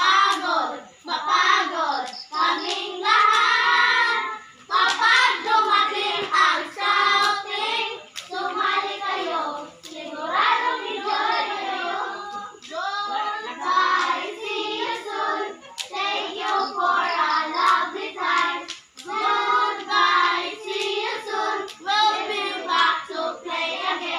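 A group of young voices chanting and singing a scout patrol yell in unison, in short rhythmic phrases, with a few sharp hits in the beat.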